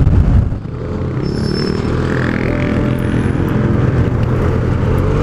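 Yamaha TMAX maxi-scooter's parallel-twin engine running at a steady cruise as it is ridden. Heavy wind rush is loud at first and drops away about half a second in, leaving the engine's even hum.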